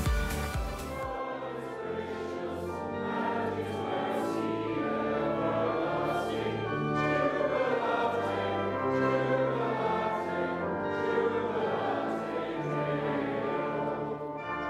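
A dance track's beat cuts off about a second in, giving way to choral singing of a hymn over slow sustained chords.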